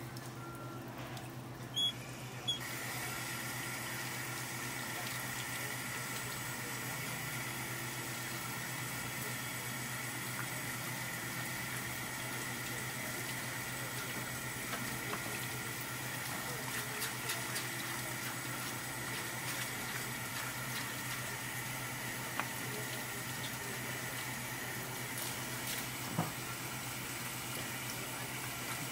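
Tap water running steadily from a hose onto a gutted parrotfish and the cutting board as its belly cavity is rinsed and rubbed clean by gloved hands. A few small knocks.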